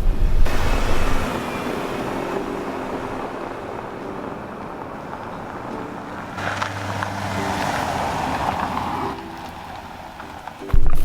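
Car driving, with engine and road noise that eases off and then grows again partway through. There is a sudden loud sound just before the end.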